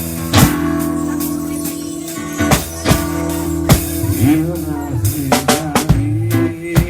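Band music with a drum kit beating out a steady rhythm over held bass notes. A sustained melody line wavers and bends in pitch about four to six seconds in.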